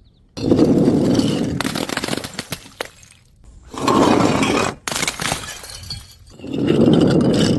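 Glass breaking three times, about three seconds apart, each crash followed by a scatter of tinkling shards.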